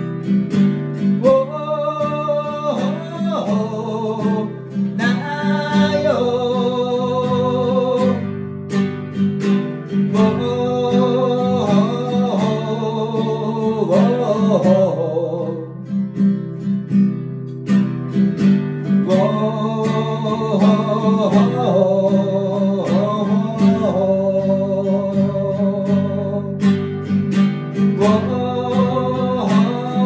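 A man singing live to his own strummed acoustic guitar. His sung phrases last a few seconds each, over a steady strum, with breaks in the voice around a third of the way in and again past the middle while the guitar keeps going.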